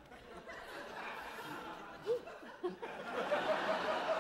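Sitcom audience laughing, swelling louder about three seconds in.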